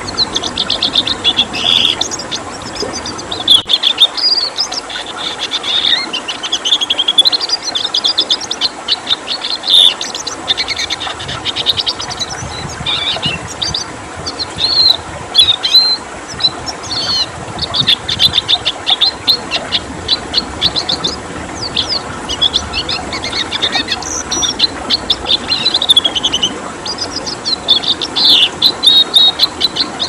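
Red siskin singing a fast, continuous twittering song of rapid chirps and trills, over a steady background of running water.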